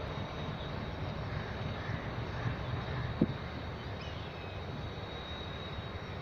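Low, steady rumble of an AGE-30 diesel-electric locomotive still far off as it approaches, with a single sharp click about three seconds in.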